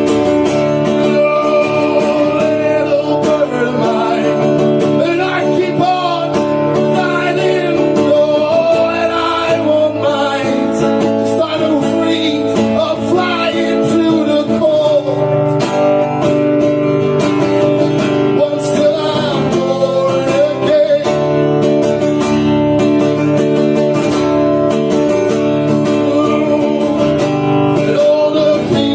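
Live song in an instrumental stretch: strummed acoustic guitar holding a steady chordal bed, with a melody line wavering and bending above it and no lyrics sung.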